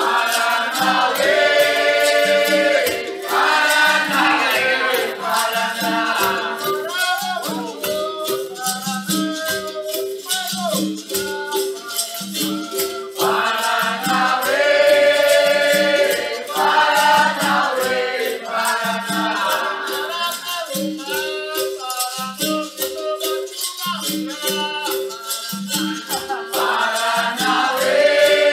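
Capoeira music: group singing over a shaken rattle and steady percussion, with a low note pattern repeating throughout.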